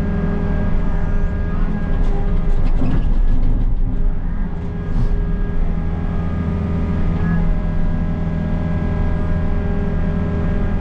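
Diesel engine of a Takeuchi compact excavator running steadily while it digs a trench, its note shifting a little partway through.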